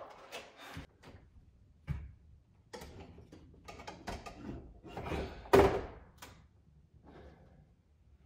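Knocks, scrapes and thuds of a Samsung Frame TV being lifted and hooked onto its wall-mount brackets. The loudest thump comes about five and a half seconds in.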